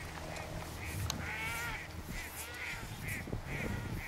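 A bird calling over and over: short arched calls about two a second, with one longer call about a second in, over a low steady rumble.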